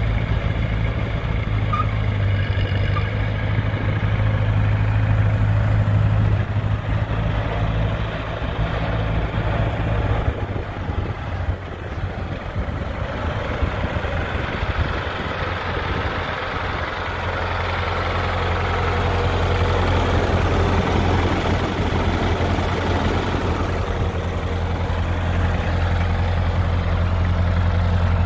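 A 1952 Ferguson TO-30 tractor's four-cylinder gasoline engine running at a steady low speed as the tractor is driven around. The note turns rougher and a little quieter about ten to seventeen seconds in, then settles back to a steady hum.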